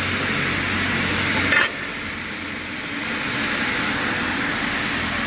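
Motors of a FASTER 55 double-head aluminium cutting saw running steadily with a low hum. About one and a half seconds in there is a short sharp sound and the hum drops away, leaving a steady hiss.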